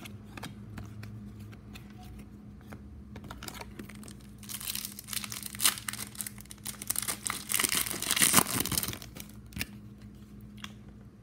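A trading-card pack wrapper being torn open and crinkled, in a few seconds of loud ragged rustling about halfway through. Before it, light ticks of cards being handled.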